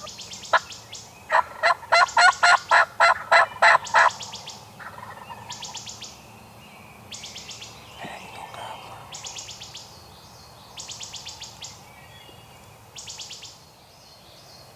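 A run of about nine loud turkey yelps, evenly spaced at roughly three a second, with short high songbird trills repeating around it.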